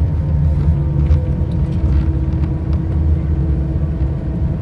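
Cabin noise of an Airbus A319 taxiing after landing: a steady low rumble from the idling engines and the wheels rolling on the pavement, with a faint steady hum and a few light clicks and rattles.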